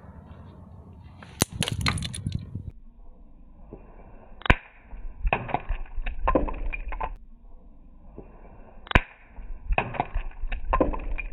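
A disposable gas lighter thrown hard against the ground, hitting with three sharp cracks a few seconds apart, with scuffing and clattering between. The lighter does not burst.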